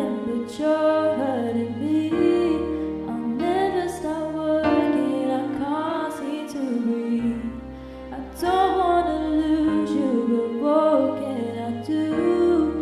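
A song playing: a sung melody over held chords and a bass line, dipping briefly in loudness just past halfway.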